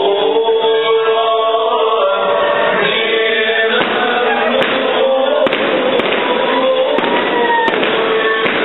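Music with long held notes, then from about four seconds in a string of sharp bangs, about one a second, over loud noise.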